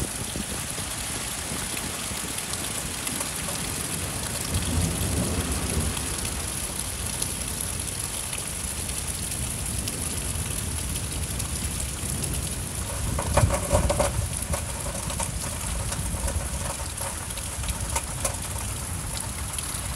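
Heavy thunderstorm rain pouring down steadily. Low rumbles swell up about five seconds in, and again more loudly a little past halfway.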